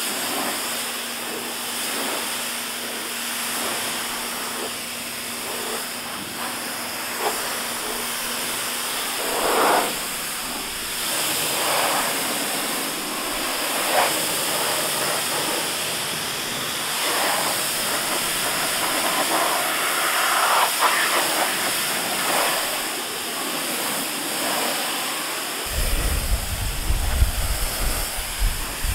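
Pressure washer spraying water onto a car's painted panels: a steady hiss that swells and fades as the spray sweeps across the body. A low rumble joins in near the end.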